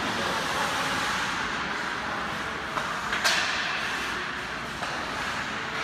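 Live ice-hockey game sound in an indoor rink: a steady, echoing wash of skates and play on the ice, with a single sharp crack about three seconds in.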